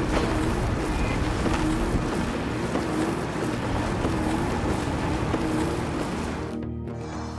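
Steady rushing noise, like wind or water, with a wavering low tone that swells and dips about once a second. Near the end the rushing fades and music with held notes comes in.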